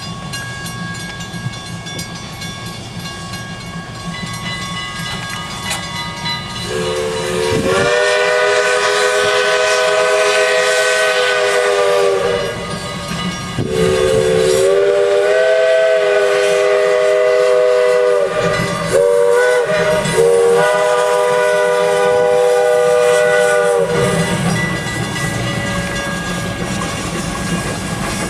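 Steam locomotive's three-chime whistle blowing the grade-crossing signal in long blasts with short breaks, each chord sagging in pitch as it cuts off, as the train approaches the crossing.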